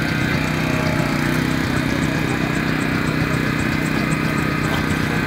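Small petrol engine of a hydraulic rescue-tool power pack running steadily at constant speed, driving the pump for the spreader/cutter.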